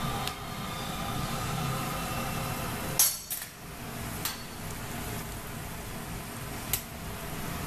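Metal teppanyaki spatula clanking against the steel griddle: a loud clank about three seconds in, a couple of lighter taps after it, and another sharp clank near the end, over a steady background hum.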